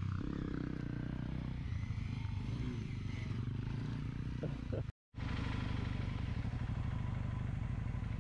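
Dual-sport dirt bike engines running under load as the bikes climb a grassy bank. A brief gap of silence comes about five seconds in, then one motorcycle engine runs steadily, heard close up from the bike.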